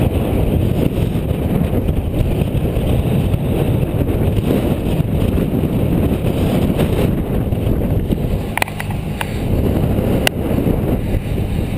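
Wind buffeting the microphone of a camera on a road bicycle ridden at speed, a steady low rushing. A few sharp clicks come a little over eight seconds in and once more about ten seconds in.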